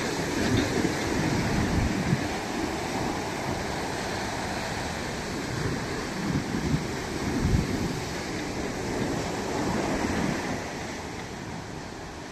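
Ocean waves washing onto a beach in a steady surf, with wind gusting on the microphone in uneven low surges.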